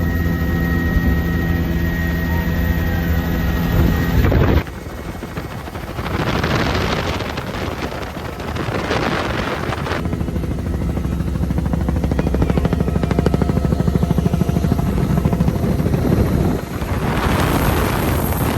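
Helicopter running: a steady engine whine over a low hum, which changes abruptly about four seconds in to a low beating rotor with rushing noise that swells and fades.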